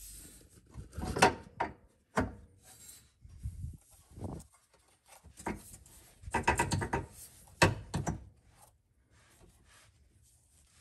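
Z1 Motorsports rear differential brace being slid under its brackets and shifted against an Infiniti Q50's differential cover: irregular metal knocks, clinks and scraping.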